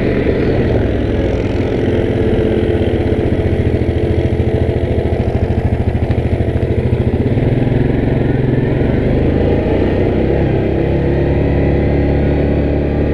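Yamaha Grizzly 700 ATV's single-cylinder engine running steadily, with a slight pitch change about two-thirds of the way in.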